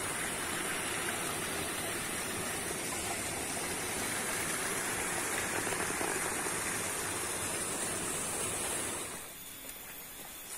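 Small stream running, a steady rush of water that fades about nine seconds in.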